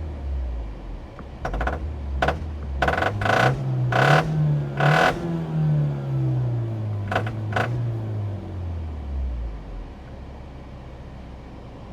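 Peugeot RCZ THP200's 1.6-litre turbocharged four-cylinder engine, its speed rising to a peak and then falling back and settling lower, with about eight short, sharp clattering noises over it at irregular moments. These sharp noises are likely the unidentified sound being diagnosed on the car.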